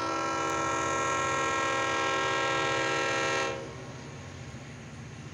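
Diesel locomotive air horn sounding one long, steady chord of several notes that cuts off about three and a half seconds in. A low steady rumble continues underneath.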